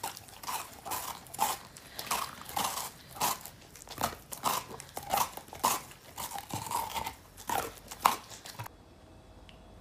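Beagle biting and crunching on a pink treat held on a stick, in quick crunchy bites about two a second. The bites stop abruptly near the end.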